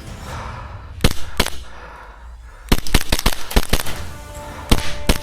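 Airsoft guns firing: two single shots about a second in, then a fast string of shots in quick succession, and a few more near the end. Background music plays faintly underneath.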